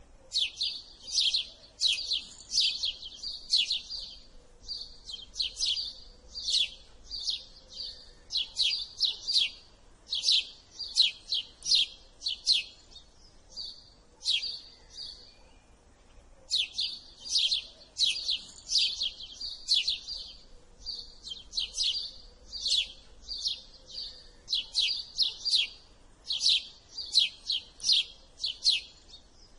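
House sparrow chirping: a steady string of short, sharp chirps, several a second, in runs broken by brief pauses, the longest about halfway through.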